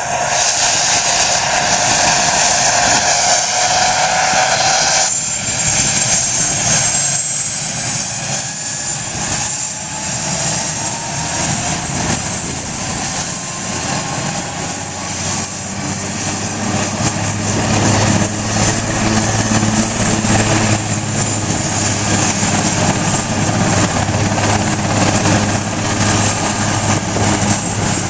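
Eurocopter Super Puma helicopter's twin turbine engines and main rotor running up on the ground before takeoff. A high turbine whine comes in about five seconds in and then holds steady. From about halfway the rotor's low drone grows stronger.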